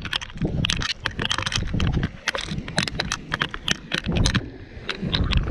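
Rapid, irregular clicks and knocks from a fishing rod and reel being handled close to a body-worn camera, over a low wind rumble on the microphone.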